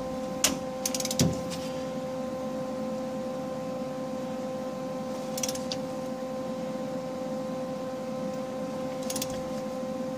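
Ratchet wrench clicking in four short spells, about half a second, one second, five and a half and nine seconds in, as it works a nut welded onto a broken exhaust manifold bolt. A steady hum lies underneath.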